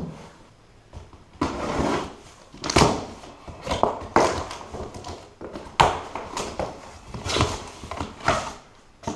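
Cardboard box being opened and unpacked by hand: an irregular run of scrapes, rustles and knocks from cardboard flaps and packing, beginning about a second and a half in.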